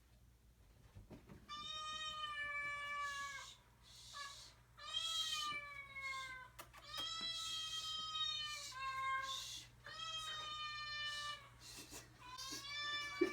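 Recording of a cat meowing, played back: about six long, drawn-out meows one after another, each lasting one to two seconds, beginning about a second and a half in.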